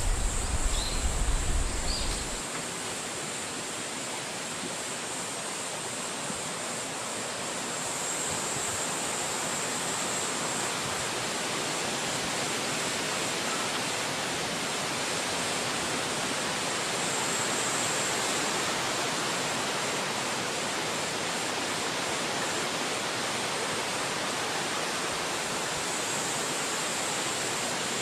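Steady, even rushing noise of a forest ambience, with a slightly brighter hiss on top. In the first two seconds there are a few short high chirps and a low rumble, and the rumble cuts off abruptly.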